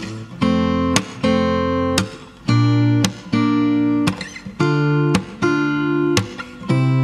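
Background music in an instrumental passage: acoustic guitar chords strummed about once a second, each held briefly before the next.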